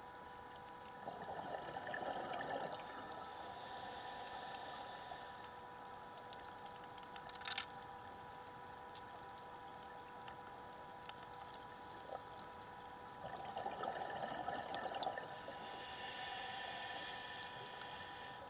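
A scuba diver breathing through a regulator underwater, twice through the cycle. Each breath is a gurgling rush of exhaled bubbles followed by the high hiss of the next inhalation, with a run of small bubble crackles between the two breaths. A faint steady tone runs underneath.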